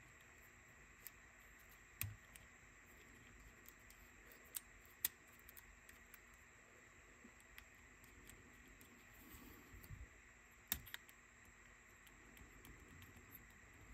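Faint, scattered small clicks and taps over a quiet background: small parts of a cassette Walkman's mechanism being handled and fitted by hand.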